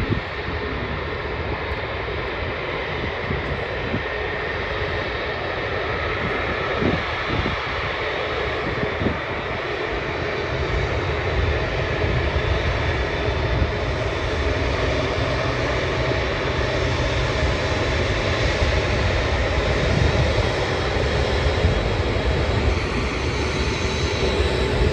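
Airbus A380 jet engines at taxi power: a steady jet roar with a faint high whine, growing slowly louder, with the low rumble strengthening about halfway through.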